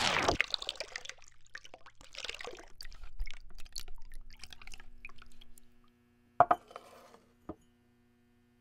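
Foley liquid sounds: a loud pour cuts off just after the start, then trickling and dripping with small clicks. Near the end come two sharp clinks about a second apart, the first the louder.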